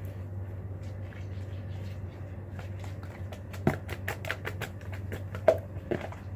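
Wet slime being mixed in a bowl: a quick run of sticky clicks and squelches starting a little past halfway, over a steady low background hum.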